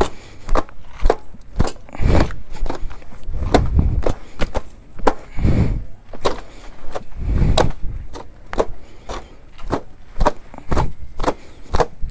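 Dust being beaten and wiped off a motorcycle with a cloth: quick repeated thwacks, about two or three a second, with duller thuds in between.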